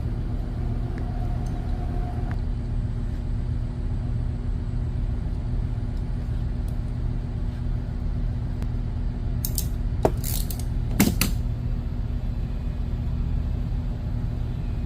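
Steady low machinery hum throughout, with a few sharp metallic clicks about ten seconds in from a handheld lug crimping tool being worked.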